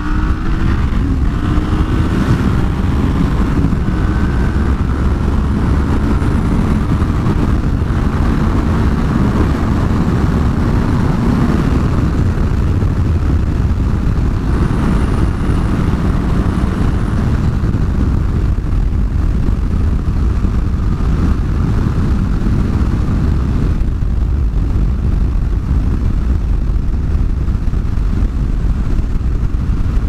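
Yamaha FZ-09's three-cylinder engine running while the bike is ridden, under a steady rush of riding wind over the microphone. The engine note stands out in the first dozen seconds, then sinks mostly under the wind.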